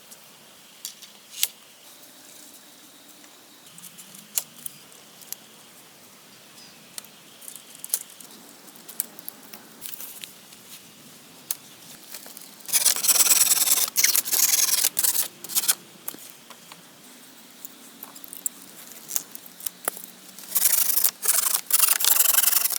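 Scraping and rubbing from hands-on work with materials, with scattered sharp clicks and two long stretches of loud rasping, one about 13 seconds in and one near the end.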